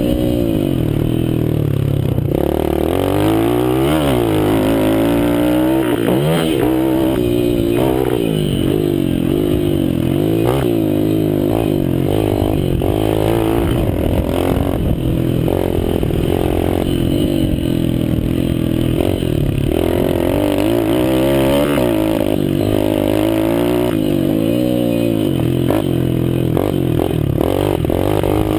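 Mini dirt bike's small engine being ridden hard, revving up and falling back again and again as the throttle is worked through the turns and straights.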